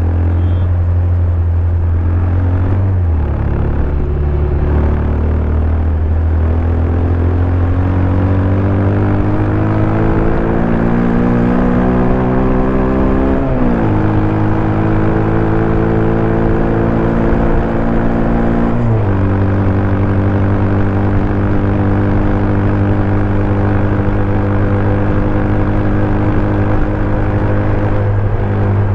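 Bajaj Pulsar 200 DTSi's single-cylinder engine running through its stock exhaust under way. It accelerates, its pitch climbing steadily and dropping sharply at each upshift: about three seconds in, about halfway, and about two-thirds of the way through. After the last shift it holds a steady cruising note.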